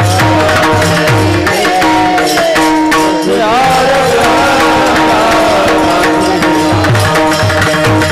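Varkari bhajan music: a voice singing a wavering, ornamented line over held harmonium-like drone notes, with a hand drum beating a steady pattern and small cymbals striking throughout.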